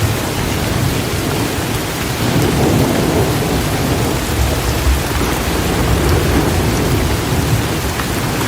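Heavy rain falling steadily, with a low rumble of thunder underneath that swells a couple of times.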